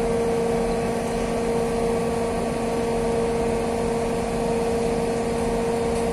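Large crawler crane's diesel engine running steadily, holding a suspended load: a constant hum with a steady tone on top.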